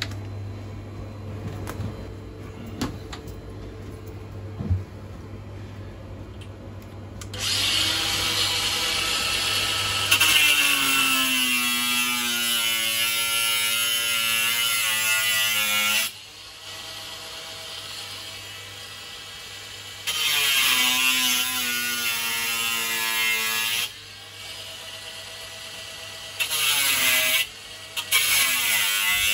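Cordless angle grinder cutting into the sheet-metal panel of an arcade fruit machine. After a few seconds of quieter handling, the grinder runs with a high whine whose pitch dips as the disc bites into the metal. It stops and restarts several times in short bursts.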